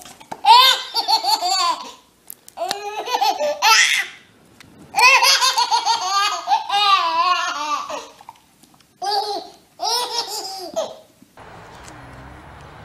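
A baby's belly laughter: repeated high-pitched, rising-and-falling bursts with short breaths between them. About a second before the end it cuts off suddenly into a steady low background noise.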